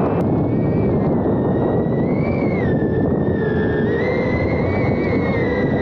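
Small FPV quadcopter's motors and propellers whining, the pitch stepping up and down a few times, over heavy wind rush on its onboard microphone.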